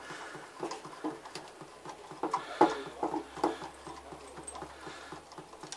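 Hand tools and metal fittings being handled: light, irregular clicks and knocks, the loudest about halfway through.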